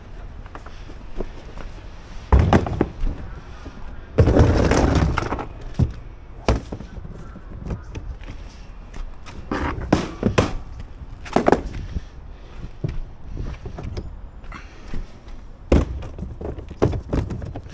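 A series of irregular knocks, bangs and thuds of equipment being handled, with a louder, longer clatter about four seconds in.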